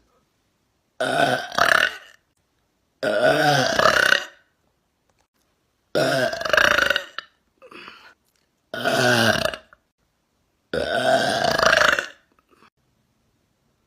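A woman burping loudly, five long croaking burps about two seconds apart. The first is broken in two, and a short faint burp follows the third.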